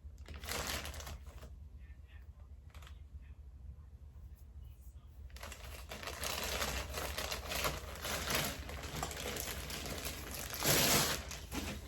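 A purse and its packaging wrap being handled and unwrapped: light scattered clicks and crinkles at first, then denser crinkling in the second half, with a louder rustle near the end.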